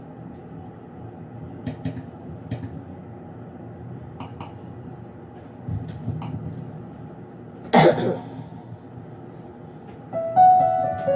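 A quiet room hum with a few small clicks, one loud cough about eight seconds in, then a piano accompaniment begins playing a slow ballad intro near the end.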